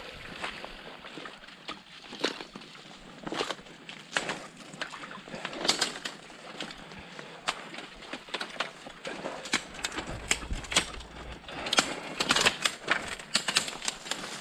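Footsteps through undergrowth: dead leaves, twigs and brambles crackling and snapping underfoot in an irregular stream, busiest near the end.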